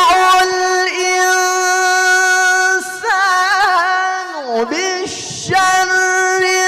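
A young man's high voice reciting the Quran in melodic tilawah style into a microphone. He holds one long steady note, then breaks into ornamented turns and a falling run, and settles on another held note near the end.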